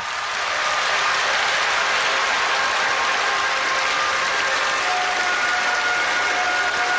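Large stadium crowd applauding, a dense steady clapping. About five seconds in, a few faint held tones come in over it.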